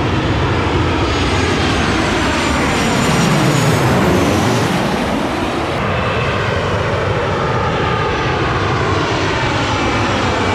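Passenger jet passing low overhead on final approach, a loud continuous engine roar that is loudest about four seconds in and then eases off. Its tone sweeps as it goes over.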